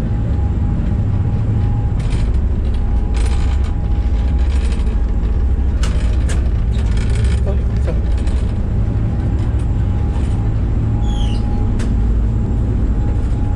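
Steady low drone of a fast passenger ferry's engines and hull, heard from inside the cabin, with a faint steady whine above it. A few short clicks and knocks sound over it.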